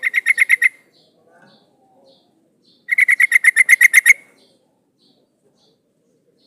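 Female yellow-vented bulbul (trucukan) calling to a male: two rapid chattering bursts of evenly spaced notes, a short one at the start and a longer run of about a dozen notes some three seconds in. Faint high chips repeat in between.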